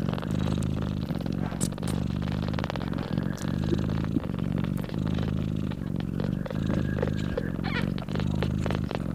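Calico mother cat purring steadily while nursing her newborn kittens, the low rumble dipping briefly about once a second with her breathing.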